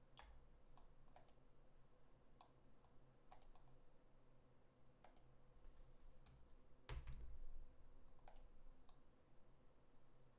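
Scattered computer mouse clicks, about ten of them at irregular spacing, with a louder knock about seven seconds in, over a faint steady hum.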